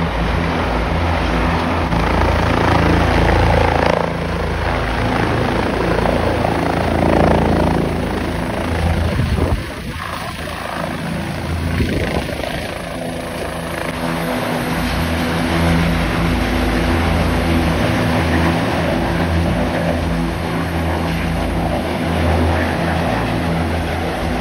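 Helicopter's turbine engine and rotor blades running steadily. It first comes in low to land, then idles on the helipad with the rotors still turning. The level dips briefly about ten seconds in.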